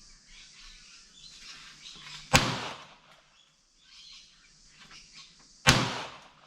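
Two gunshots about three seconds apart, each a sharp crack with a short fading tail, from target shooting at a range.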